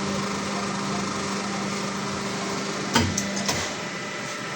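A steady mechanical hum with a hissing noise, broken by two sharp clicks about three seconds in, after which the hum stops.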